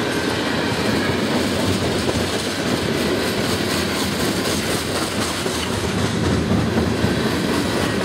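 Freight cars of a mixed freight train rolling past at close range: a steady rumble of steel wheels on rail, with repeated clicking as the wheels cross rail joints.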